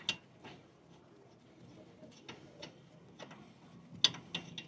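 Scattered metallic clicks and clinks of hand tools and brake parts as a truck's front brake caliper is worked loose and removed, with a sharp click at the start and a cluster of clicks about four seconds in.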